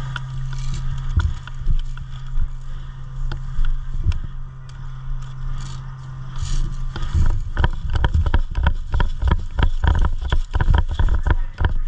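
Rustling and knocking movement noise, with a steady low hum for about the first seven seconds, then a dense, irregular run of sharp knocks and scuffs from about seven seconds in.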